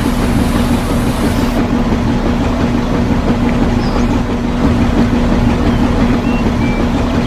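A small motor running steadily at a constant speed, with an even hum and a fast rattling flutter.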